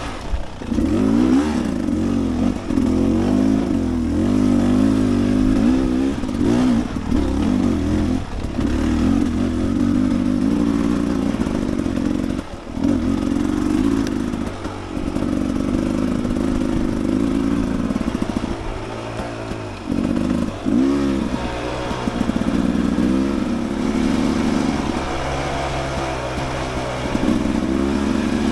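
Dirt bike engine under way, revving up and down with the throttle every second or two, with a few brief drops off the throttle about halfway and two-thirds of the way through.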